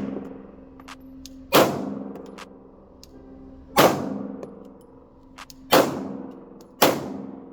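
Four 9mm pistol shots at uneven intervals, each with a ringing tail, with a few small metallic clicks between them.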